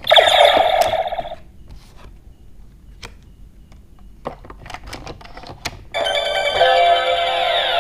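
DX K-Touch 21 transformation toy playing an electronic sound effect from its speaker for about the first second and a half, then a few clicks of its touch panel being pressed and handled. About six seconds in, a loud looping electronic tune with sweeping tones starts and keeps playing.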